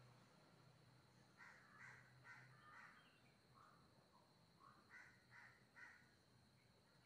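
Faint bird calls over near-silent room tone: a run of four short calls about a second and a half in, then three more about five seconds in.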